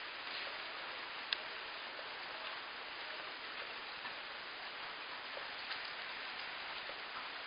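Rain falling steadily, an even hiss with scattered faint ticks of drops. One sharp click about a second in.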